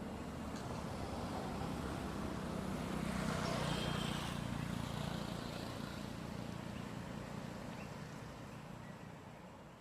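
Low rumbling noise that swells to a peak about four seconds in and then fades away.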